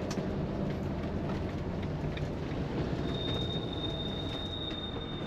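Motorhome driving along a winding road, heard from inside the cab: a steady low rumble of engine and tyres with a few light rattles. About three seconds in, a thin high squeal starts and holds steady.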